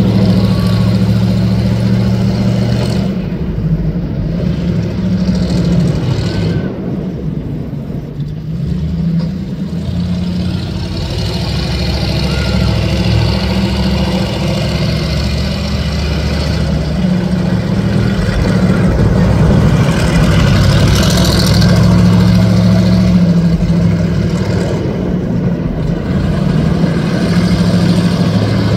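Car engines running near idle: a steady low rumble that dips slightly in level a few seconds in and then builds back up.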